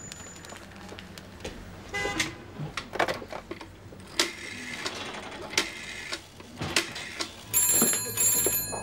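Scattered clicks and knocks, then near the end a telephone bell gives one double ring, two short rings with a brief break between them.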